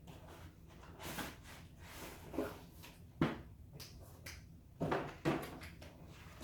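A handful of short clicks and knocks from computer parts being handled and fitted, five in all and spaced irregularly, the loudest a little after three seconds in and two close together near the end.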